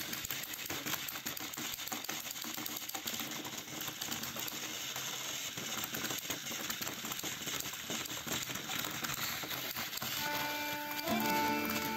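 Two battery-powered toy train engines straining against each other on plastic track: small motors and gearboxes whirring with a fast clicking rattle as the wheels spin. Music comes in near the end.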